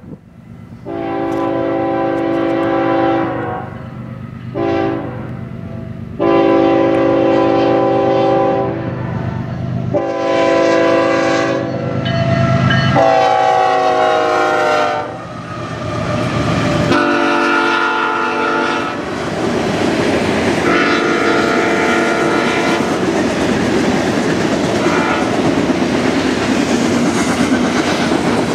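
BNSF diesel freight locomotives sounding their horn in a series of long and short blasts, the horn's pitch dropping as they pass close by. After them, the covered coal hopper cars rumble and clack steadily over the rail joints.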